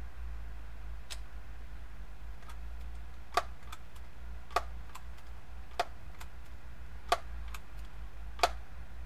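Daisy PowerLine 901 multi-pump air rifle being pumped: five sharp clicks about a second and a quarter apart as the forend pump lever is worked, with lighter clicks in between.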